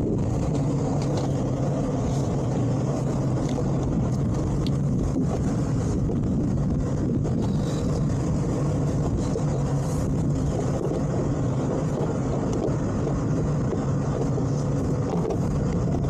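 Boat outboard engine idling steadily, an even low hum that does not change.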